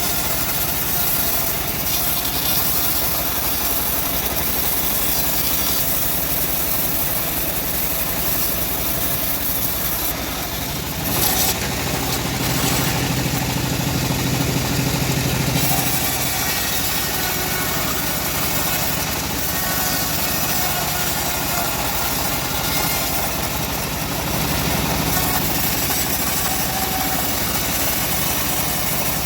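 Homemade bandsaw mill running steadily with a continuous machine drone. For a few seconds around the middle, a stronger low hum comes in with a click, then the sound settles back.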